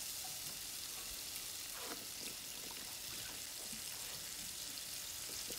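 Steady faint hiss with no speech, and a soft faint sound about two seconds in.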